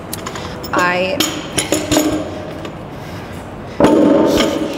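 Metal gym equipment clinking and knocking, several sharp clicks in the first two seconds. A short wordless vocal sound comes about a second in, and a louder rush of noise follows near the end.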